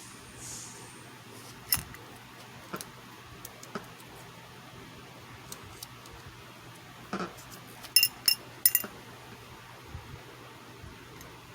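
Small tools being handled at a repair bench: scattered light clicks and taps, with three sharp ringing metallic clinks about eight seconds in, over a low steady hum.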